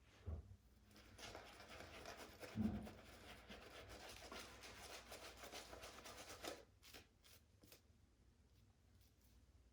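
Shaving brush working lather on the face: a faint, soft scratchy swishing of the bristles for about six seconds, then only a few faint clicks.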